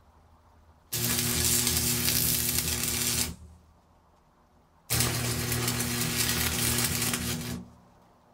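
Electric arc welding on the steel leg of an engine stand: two welds of about two and a half seconds each, with a pause of about a second and a half between them. Each is a steady loud hiss over a low, even hum.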